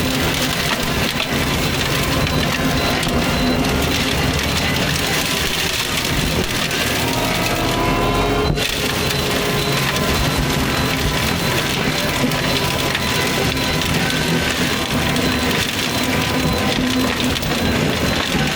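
Fecon forestry mulcher head grinding and splintering brush and wood, with the carrier machine's engine running steadily under load. There is a brief break about eight and a half seconds in.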